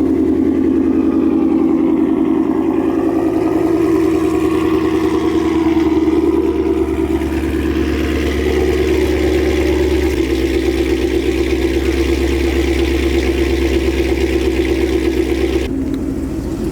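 Ford Mustang GT's 5.0 V8 idling steadily through newly fitted long tube headers and a Corsa exhaust, really loud. There is no exhaust leak to be heard. The sound changes abruptly near the end.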